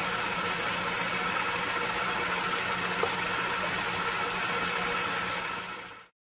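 Atlas 618 metal lathe running while it takes a light finishing cut in aluminum under slow motor-driven power feed: a steady machine hum with a high whine over it. The sound fades out about six seconds in.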